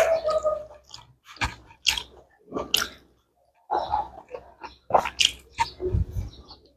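A person chewing and biting food close to the microphone, with irregular wet smacks and crackles about one to two a second.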